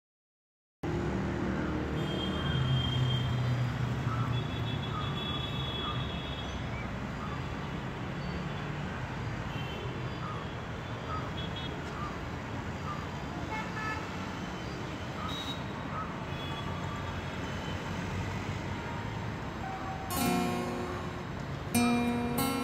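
City street traffic noise with car horns tooting now and then. A strummed acoustic guitar comes in near the end.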